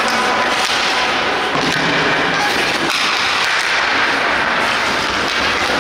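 Ice hockey game sound in a rink: a steady wash of noise with occasional sharp knocks from sticks and puck, and voices calling.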